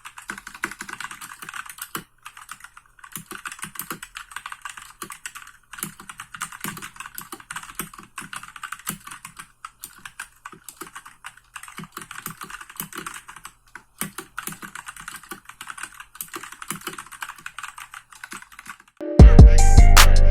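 Fast typing on a Royal Kludge RK68 65% mechanical keyboard with brown tactile switches: a dense patter of keystrokes in runs with brief pauses. About a second before the end, much louder music with drums cuts in.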